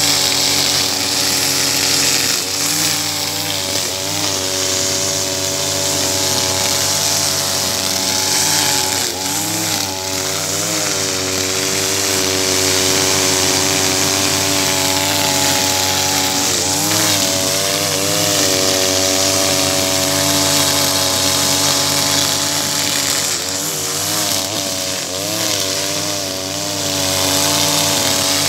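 Husqvarna 542RBS backpack brush cutter's 42cc two-stroke engine running at high revs, spinning 2.4 mm square trimmer line through tall, thick grass. Its pitch dips briefly several times as the line bites into dense grass, then climbs back.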